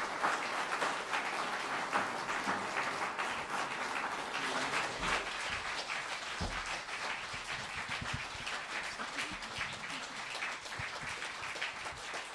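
Audience applauding, many hands clapping together, fading a little toward the end.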